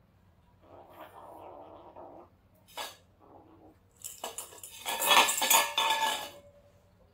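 A small stainless-steel pet food bowl clattering on a hard floor as a kitten noses into it and shifts it, with dry kibble rattling against the metal. Softer rattles and a single sharp click come first; the loudest clatter comes about four to six seconds in.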